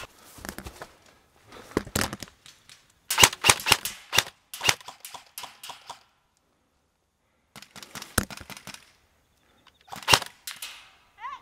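Airsoft guns firing in several short bursts of rapid, sharp shots. The longest run comes about three to five seconds in. After a brief quiet, more bursts follow near the end.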